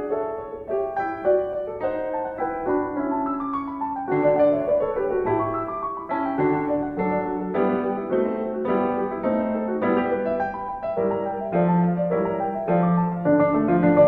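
Solo piano music: a flowing melody of struck notes over held lower chords.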